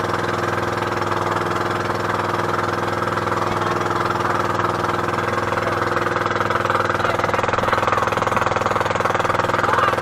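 Outrigger boat's inboard engine running steadily under way, an even, constant-pitch engine sound with no change in speed.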